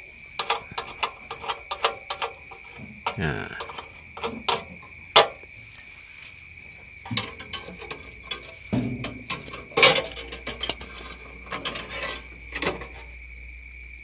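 A small metal tool scraping and picking at a cooled aluminium weld on a refrigerator evaporator plate in short, irregular strokes, done to check that the weld bead is smooth and free of ridges that would leak. A steady high insect chirring runs underneath.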